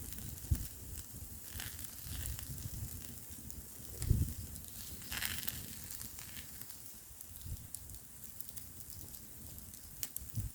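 Wood fire crackling outdoors, with scattered sharp pops and a brief hiss about five seconds in. Irregular low rumbling from wind gusting over the fire and the microphone.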